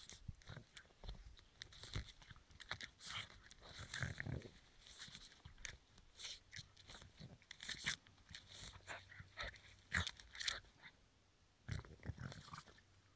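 Boston terrier biting and tearing at dry twiggy plants: irregular crunching, snapping and rustling of stems and leaves in its mouth.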